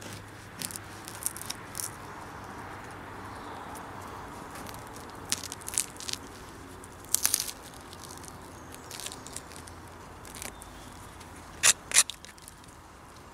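Knife cutting through the hard, crusty, partly burnt crust of a Dutch oven bread loaf: scattered crunching crackles, the loudest two close together near the end as the slice breaks away.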